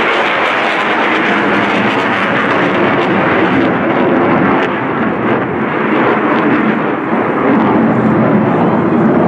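Loud, steady jet noise from the F-35C Lightning II's Pratt & Whitney F135 turbofan, with afterburner lit, as the fighter pulls a tight turn.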